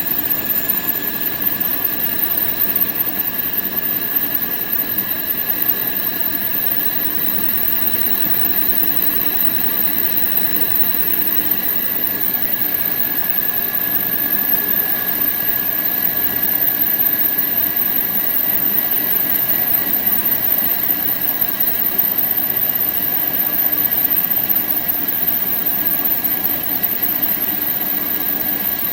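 A surface grinder running steadily, its wheel cylindrically grinding a part turned between centres in a grinding attachment, with a steady hiss and a constant high whine throughout.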